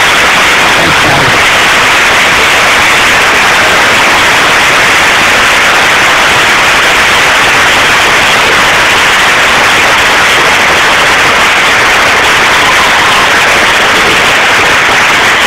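Large auditorium audience applauding steadily, so loud that the recording is overloaded into a dense hiss.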